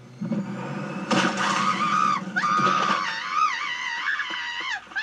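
High-pitched cartoon voice screaming and wailing, its pitch wavering and sliding, with a crash about a second in and a low rumble underneath.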